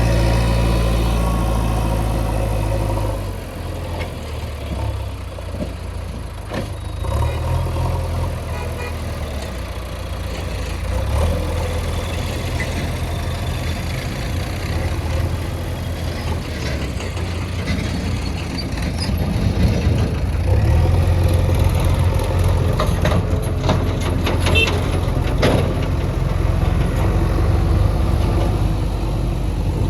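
Heavy diesel machine engine running steadily. Its note eases a few seconds in and picks up again past the middle, with a few sharp clanks near the end.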